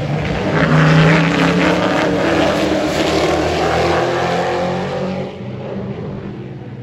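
Super truck race truck's engine running hard as it passes on the track, loudest about a second in, its note sinking as it goes by, then dropping away and fading a little after five seconds.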